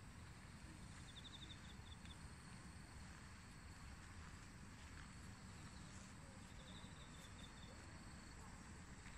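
Near silence: faint outdoor ambience with a low rumble, and a short, rapid, high-pitched chirping trill twice, about a second in and again past the middle.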